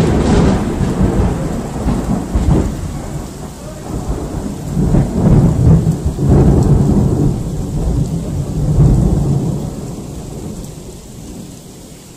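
A long, loud rolling rumble of thunder that surges several times and slowly dies away near the end, over steady rain.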